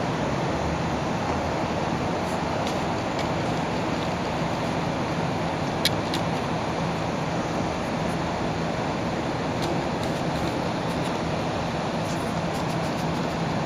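Steady outdoor background rush with a low hum under it, and a few faint clicks, the sharpest about six seconds in.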